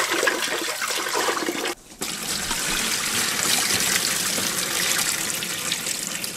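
Tap water running into a stainless steel pot while a hand swishes rice grains in it, then the cloudy rinse water poured out of the tipped pot into the sink, rinsing the starch powder off the rice. A brief break about two seconds in.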